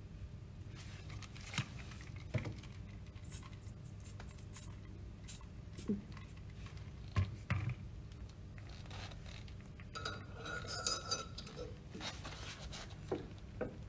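Small metal parts of a pump's mechanical shaft seal being handled and fitted onto the shaft: scattered light clinks, taps and knocks, with a short scraping rustle about ten seconds in.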